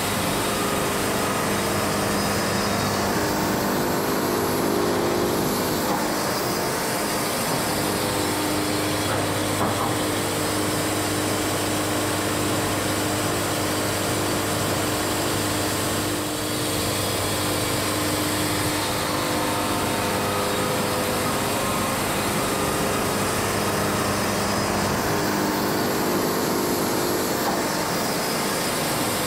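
Engine-driven Wood-Mizer LT70 band sawmill running at a steady, even level as its blade saws boards from a Kentucky coffee tree log and the sawhead travels along the track.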